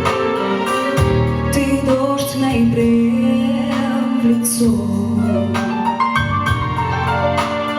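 Music from a song, with sustained chords and a steady bass line.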